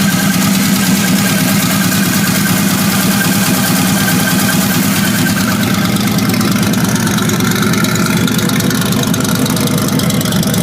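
1978 Chevrolet Camaro engine idling steadily with a ticking from the valvetrain: the sign of a bad lifter and a worn camshaft.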